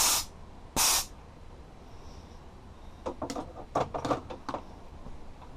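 Two short blasts of compressed air hissing out of a shop air line, about three quarters of a second apart, followed a couple of seconds later by a run of light clicks and knocks.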